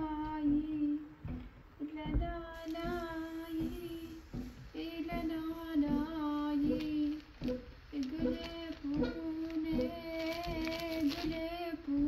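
A woman singing a slow lullaby, a single voice holding drawn-out notes in short repeated phrases with brief pauses between them.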